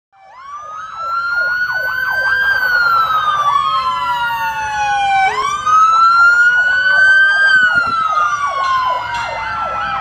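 Two emergency vehicle sirens sounding together. One is on a slow wail, rising and falling twice; the other is on a fast yelp, sweeping up and down several times a second.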